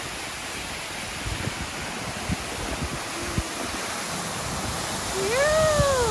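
Steady rushing of a waterfall. Near the end a person's voice gives one short call that rises and then falls in pitch.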